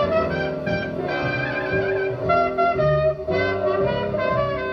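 Recorded music playing through a 45 triode tube amplifier and its loudspeakers, with melody notes changing over a bass line.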